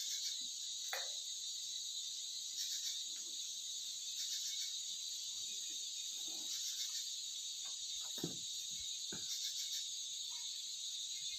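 Steady, high-pitched chorus of insects, crickets or similar, with a few faint knocks and scrapes about a second in and again near the end.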